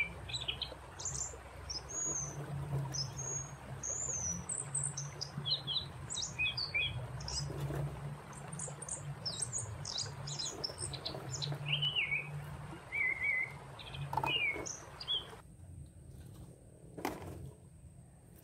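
Small birds chirping and whistling in short, varied calls, many in quick succession, over a steady background hiss that stops abruptly about fifteen seconds in. A single sharp click follows near the end.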